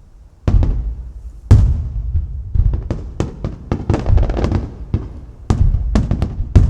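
Aerial firework shells bursting in quick succession: a string of sharp booms with crackling between them, densest about three to four seconds in.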